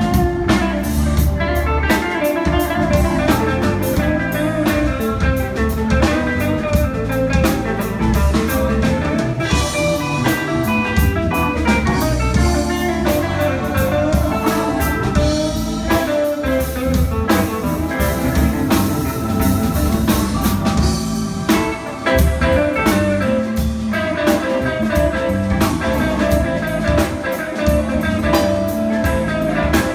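Live blues band playing: electric guitar lines over electric bass and a drum kit.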